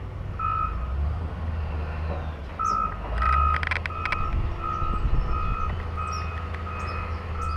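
A vehicle's reversing alarm beeping at an even pace, a little under two beeps a second, over a steady low engine rumble. A few sharp clicks come about three seconds in.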